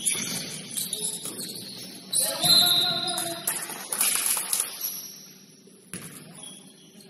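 Basketball game court noise: many short high squeaks and clicks and a short pitched shout about two and a half seconds in. A single sharp thump comes about six seconds in.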